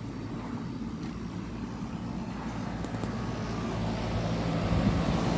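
Running outdoor air conditioner condensing units: a steady hum of compressor and condenser fan with a few low steady tones, growing louder toward the end.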